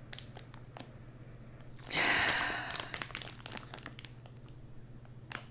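A long sniff through the nose at a wax melt held in its clear plastic packaging, about two seconds in, with light crinkling and small clicks of the plastic in the hands.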